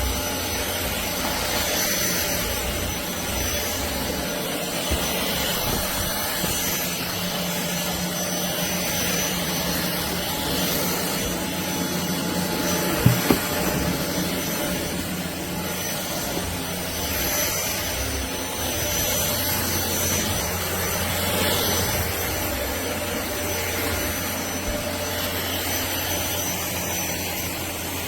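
DIFFULL V20 cordless stick vacuum running steadily with a constant motor whine and rush of air. There is a single brief knock about halfway through.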